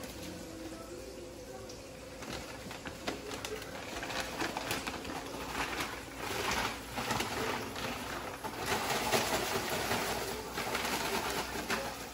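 Paper grocery bag rustling and crinkling as raw fish pieces are dropped in and the bag is handled and shaken, in uneven surges that grow louder after a few seconds. A steady low hum runs underneath.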